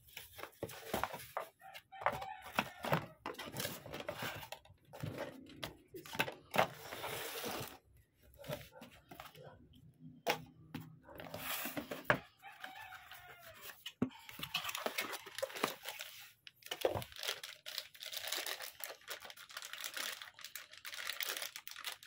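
Cardboard boxes and plastic packaging rustling, crinkling and knocking as guitar effects pedals and a power supply are unpacked by hand. Paper and cardboard are handled, and near the end a plastic bag crinkles.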